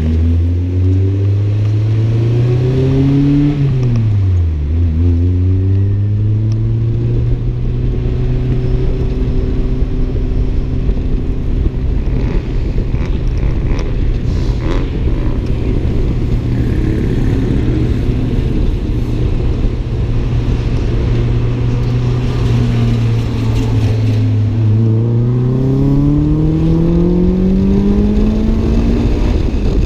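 Toyota AE86's 4A-GE twin-cam inline-four under load, heard from inside the cabin. It revs up, drops sharply in pitch about four seconds in, holds a nearly steady note for a long stretch, then climbs again for the last few seconds.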